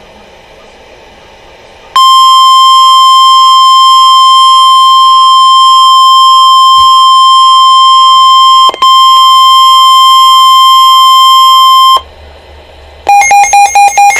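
Emergency alert broadcast: after a faint static hiss, a single steady alert tone of about 1 kHz, the weather-radio warning alarm tone, sounds loudly for about ten seconds with a brief dropout near the middle. About a second after it stops, the rapid warbling data bursts of an alert's digital (SAME) header begin.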